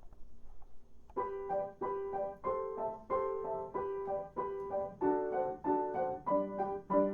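Instrumental music led by piano: after a brief pause, a steady run of repeated notes starts about a second in, about three a second, and a lower line joins near the end.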